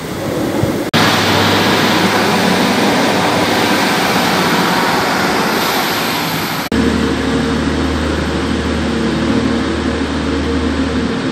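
Diesel multiple unit running beneath a footbridge: a loud, steady rush of engine and wheel noise that starts suddenly about a second in. Near the middle it cuts to a Class 185 diesel multiple unit at the platform, its engine running with a steady low hum.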